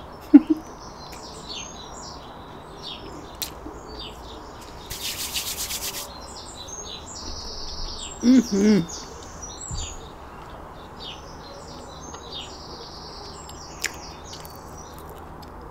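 Small garden birds chirping and singing on and off. About five seconds in there is a second-long hissing burst, and two brief low pitched sounds stand out, one right at the start and one about eight seconds in.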